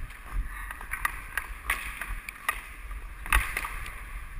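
Hockey skate blades scraping the ice, with sharp clicks of a stick on the puck and ice; the loudest click comes about three and a half seconds in.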